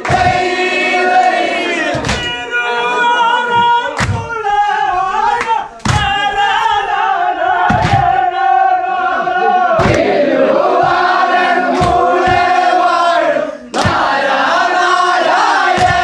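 A crew of snake-boat oarsmen singing a boat chant together in unison, long held notes with a loud thump keeping the beat about every two seconds. The singing breaks off briefly twice between phrases.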